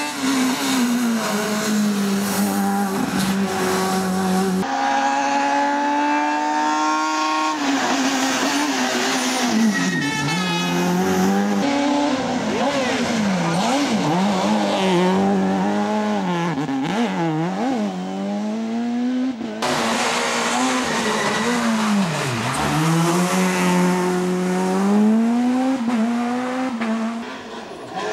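Fiat Grande Punto S2000 rally car's naturally aspirated four-cylinder engine driven hard, its pitch climbing and dropping over and over through gear changes and lifts. The sound changes abruptly about 5 s and 20 s in, where different passes are joined.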